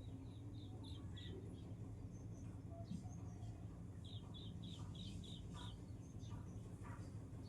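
Short high-pitched chirps, about three a second, in two runs: one at the start and another about four seconds in. A faint steady low hum runs underneath.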